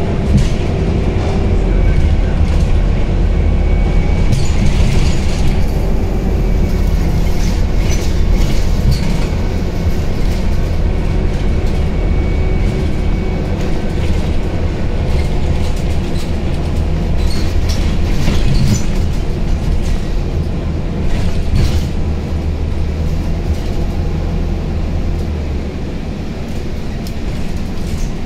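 Scania Citywide 12LF CNG city bus heard from inside the cabin while driving: a steady low drone from its Scania OC09 compressed-natural-gas engine, with road noise and occasional rattles from the interior fittings. The low drone eases about two seconds before the end.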